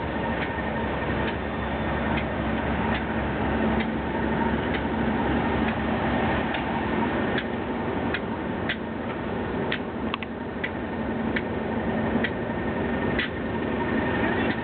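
Train rolling slowly past, its wheels clicking over the rail joints about once a second, some clicks in quick pairs. Under the clicks runs the steady sound of a Class 37 diesel locomotive's engine.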